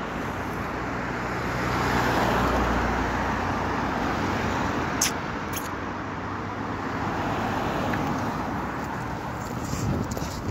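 Road traffic: cars passing close by on a multi-lane road, their engine and tyre noise swelling as one goes by about two seconds in and again near the end, with two brief clicks midway.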